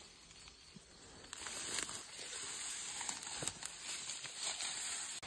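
Rustling and light crackling of grass and weeds as a Charolais calf moves through them close to the microphone, over a steady high hiss; the rustling grows louder about a second in.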